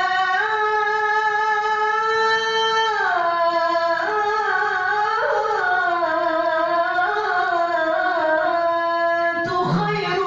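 A single unaccompanied voice chanting a long melismatic line in Arabic devotional style, holding notes and bending between pitches, with a short breath about nine seconds in.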